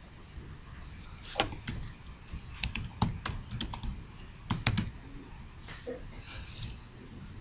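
Typing on a computer keyboard: short runs of key clicks with pauses between them, the keystrokes stopping a little past the middle.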